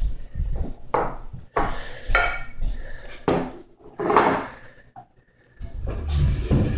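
Dishes and cutlery clattering in a string of separate knocks, as a baby bangs a plate and utensils about while eating a pancake.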